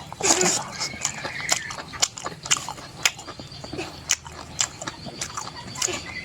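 Close-up eating sounds: chewing and biting with wet mouth clicks and lip smacks, several sharp clicks a second at an uneven pace.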